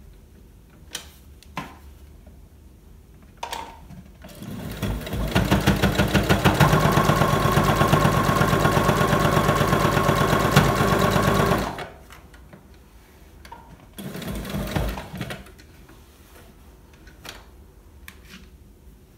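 Electric sewing machine stitching through layered fabric: after a few light clicks and a brief start, it speeds up into a steady, fast run of stitches for about seven seconds, then stops abruptly. It makes one more short run of about a second near the end.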